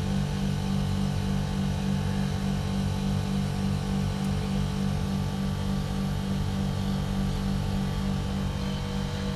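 TCL ductless split air conditioner's outdoor unit running through its defrost cycle with the condenser fan stopped: a steady low compressor hum with faint steady tones above it.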